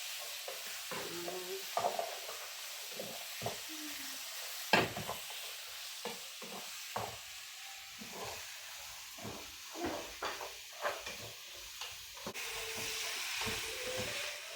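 Beef with tomatoes sizzling in a pot while it is stirred, a spoon scraping and clicking against the pot over a steady frying hiss, with one sharper knock about five seconds in.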